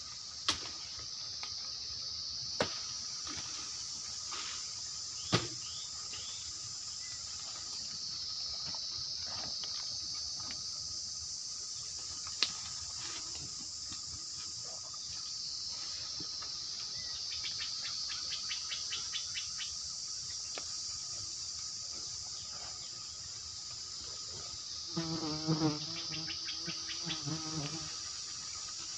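A steady high-pitched insect chorus, with a few sharp snaps and knocks in the first half as someone climbs through bamboo and branches. Near the end a brief low, wavering pitched sound joins in.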